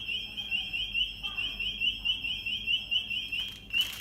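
Retail anti-theft (EAS) security gate alarm going off, signalling a detected tag: a high, rapidly warbling beep about five cycles a second, which breaks off briefly near the end and starts again.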